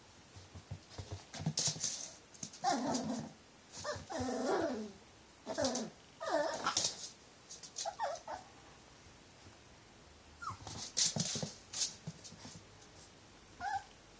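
Nine-week-old Cavalier King Charles Spaniel puppy giving a string of short, high, growly barks and yips, several falling in pitch, with bursts of clicking and scuffling between them.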